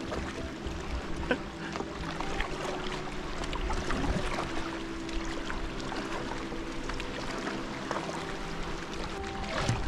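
Choppy lake water slapping and splashing against a small paddle craft, with paddle strokes, over a steady low drone from a motorboat engine.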